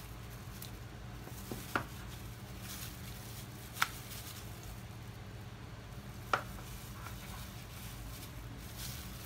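Marinated chicken pieces being lifted from a glass bowl and laid into a Tefal ActiFry air fryer pan by a gloved hand: three light, sharp knocks spaced a couple of seconds apart, over a steady low hum.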